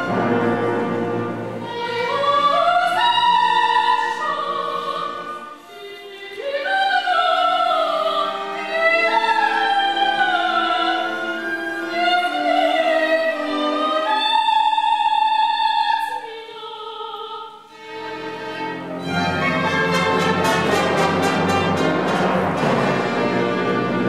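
Operatic singing with orchestral accompaniment; the voice holds one long note in the middle, and near the end the orchestra plays a loud, full closing passage.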